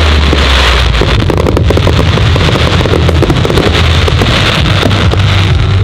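Fireworks display heard as a loud, continuous low rumble with dense crackling.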